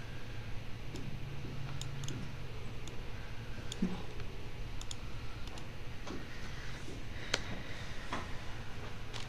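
Computer keyboard keys clicking: a scattered handful of single keystrokes, spaced irregularly, over a steady low hum.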